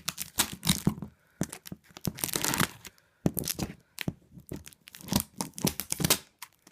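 Parcel packaging being torn open by hand: a series of irregular sharp rips with some crinkling, loud enough to be harsh on headphones.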